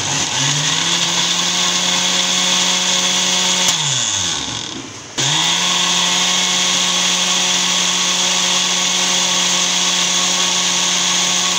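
Electric blender motor blending a mango, milk and ice-cream milkshake: it spins up to a steady whine, winds down about four seconds in, then runs again at full speed with a steady whine.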